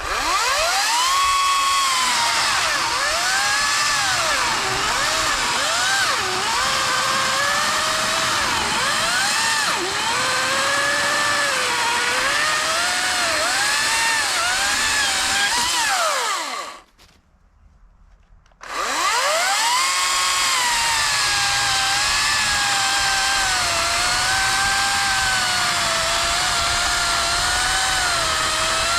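Ryobi 40-volt HP 18-inch cordless chainsaw cutting a thick log. The electric motor's whine keeps dipping in pitch as the chain bogs down under load, then rises again. It stops for about two seconds past the middle, then starts again and cuts on.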